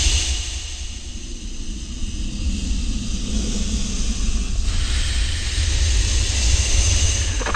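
Homemade Tyrannosaurus rex sound effect: a deep, steady rumble with a breathy hiss over it, the hiss growing brighter about two-thirds of the way in.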